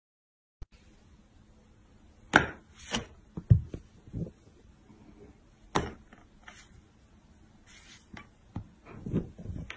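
A handful of sharp, irregular taps and knocks with a short rustle of paper: a pen tapping on an open notebook on a tabletop while a cat paws at it.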